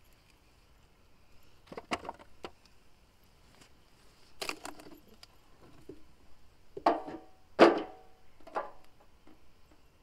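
Potatoes being dug out of a raised bed by hand: short bursts of scraping and knocking as soil is raked through and potatoes are pulled out and handled, the loudest a little under eight seconds in.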